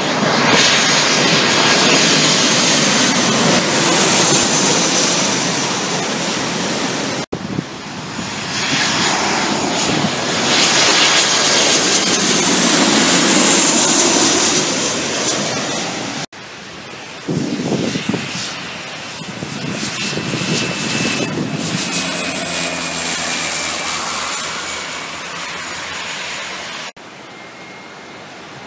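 Airliners' engines passing close by in several separate recordings cut abruptly together: each a loud engine noise that swells and fades, with a high whine slowly falling in pitch, and a quieter stretch near the end.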